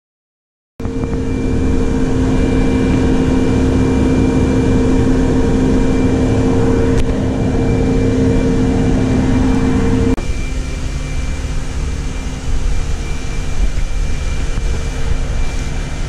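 A steady machine hum with two low hum tones and rough noise underneath; about ten seconds in the higher hum tone stops and the sound gets a little quieter.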